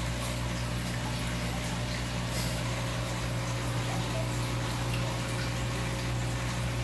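Steady low hum of an aquarium pump with water circulating, under an even hiss that does not change.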